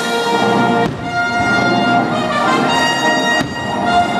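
Orchestral music with brass playing loudly through the show's sound system, cut by two brief sharp cracks, about a second in and near the end.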